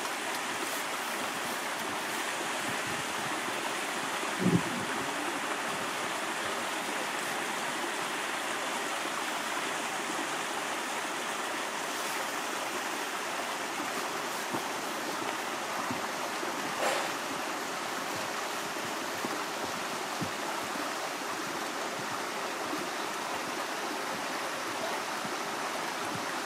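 Running water of a stream, a steady rushing sound, with one brief low thump about four and a half seconds in.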